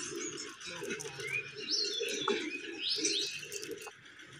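Birds calling outdoors: a few short rising chirps, over lower calls that keep going.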